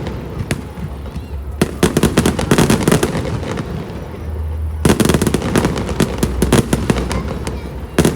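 Aerial fireworks bursting in rapid volleys of sharp, crackling reports, a few single bangs at first, then a dense barrage about one and a half seconds in and a fresh loud surge about five seconds in.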